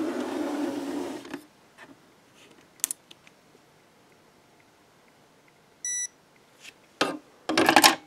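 A brief scraping rustle and a click, then a single short high electronic beep from a WEDO Porto-Fix postal scale as it switches on. Near the end, the 1941 M.C.I. metal handcuffs clink and clatter as they are set down on the scale's platform.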